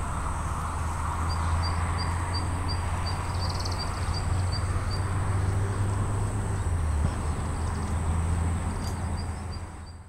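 Outdoor ambience: a steady low rumble and hiss, with a thin steady high whine. Over it, a run of short high chirps repeats about three times a second for a few seconds, and again near the end. It all fades out at the end.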